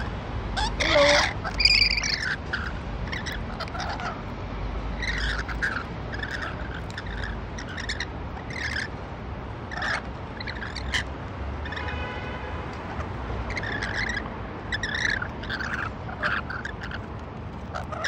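Rainbow lorikeets giving repeated short, high chattering calls, loudest about a second in.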